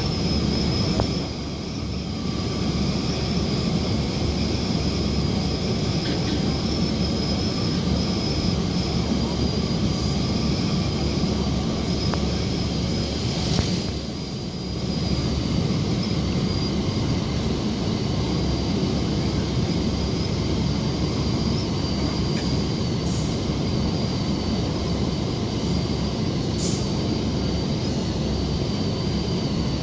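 Korean-built (Hyundai Rotem) K-Train metro car running between stations, heard from inside by the door: a steady rumble of wheels on rail with a constant high whine above it. The noise dips briefly about a second in and again around the middle.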